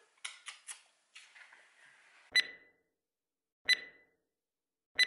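Countdown sound effect: three sharp ticks, each with a short beep-like tone, about 1.3 seconds apart. A few faint short noises come before them in the first second and a half.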